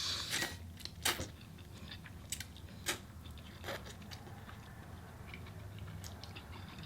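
Close-up eating: a person biting and chewing food, with a handful of short, sharp crunches in the first few seconds, then quieter chewing over a low steady hum.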